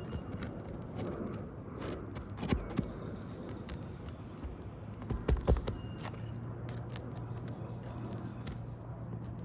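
Metal hand tool scraping and prying at asphalt roof shingles, with a few sharp knocks: two about two and a half seconds in and a quick cluster about five seconds in.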